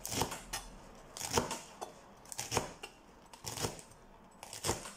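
Kitchen knife slicing through rolled-up cabbage leaves on a plastic chopping board: about five short, sharp cuts, roughly one a second.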